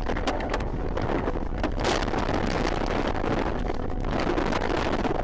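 A steady, loud rushing of wind and road noise on a dashcam's microphone, with scattered knocks, as a car runs off the road into roadside brush.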